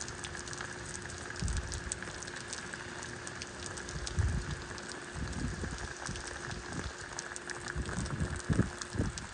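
Steady rain falling, with the patter of many separate drops. Gusts of wind buffet the microphone in low rumbles from about a second and a half in, coming more often near the end.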